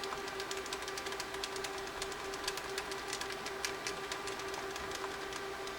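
Buttons on a TI-83 Plus graphing calculator being pressed rapidly and repeatedly, giving quick, irregular plastic clicks, several a second, over a faint steady hum. The keys are being mashed to test a newly replaced screen ribbon cable.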